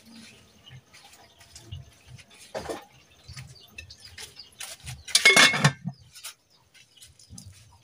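Aluminium lid set down onto a large aluminium cooking pot about five seconds in: a brief metallic clatter with a thin ringing tone. Before it, faint scattered crackles and clicks from the wood cooking fire.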